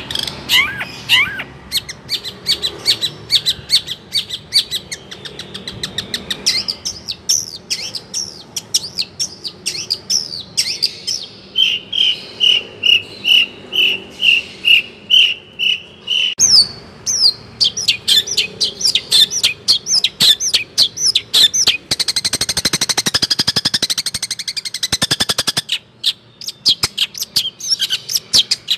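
A songbird singing a long, fast, varied song of rapid chirps and trills, with a run of about ten even whistled notes in the middle and a dense buzzy passage near the end.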